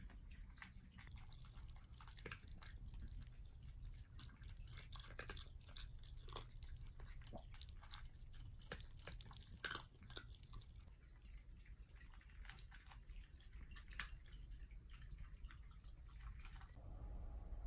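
Faint, irregular crunching of a Shiba Inu and two cats chewing dry kibble from their bowls.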